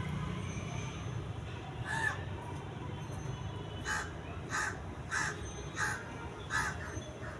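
A bird calling: one call about two seconds in, then a run of five calls evenly spaced about two-thirds of a second apart.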